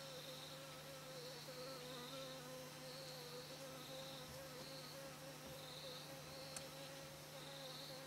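A small flying insect buzzing steadily, its pitch wavering slightly, while other forest insects chirp in short high pulses about once a second. There is one faint click about two-thirds of the way through.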